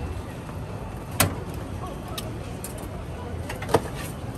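Two sharp knocks, about a second in and again near the end, as plastic sauce squeeze bottles are set down in their holder on the stall counter, over a steady low background din.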